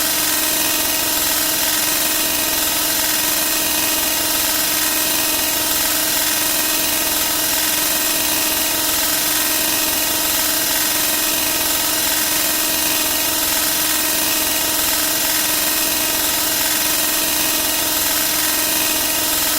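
A steady mechanical buzzing drone with a constant pitch and many overtones, unchanging throughout.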